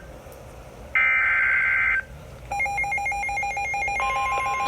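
Emergency Alert System SAME header from a NOAA Weather Radio broadcast: a harsh one-second digital data burst, then fast rhythmic two-tone beeping, then a steady 1050 Hz warning alarm tone starting near the end, signalling that a new warning is about to be read.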